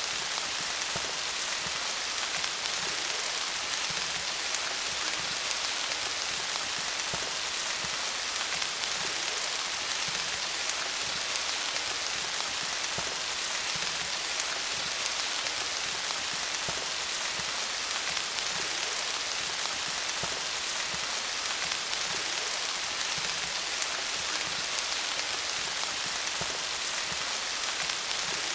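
Steady rain falling on leaves: a dense, even patter of many drops.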